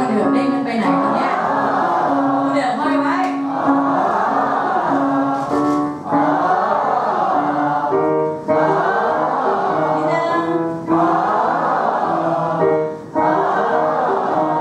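A group of voices singing a vocal warm-up together, following piano notes that step up and down a scale. The sustained sung notes come in phrases of a few seconds each, with short breaths between them.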